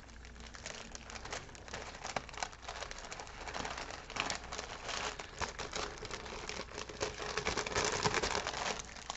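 Clear plastic pouch crinkling and rustling as a bundle of diamond painting accessories is slid into it, in irregular crackles that grow louder near the end.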